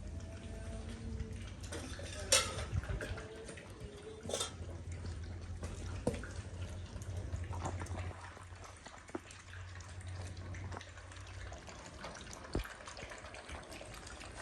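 Several puppies lapping and slurping milk from a bowl: a run of small wet clicks and smacks over a steady low hum, with two sharper clicks in the first few seconds.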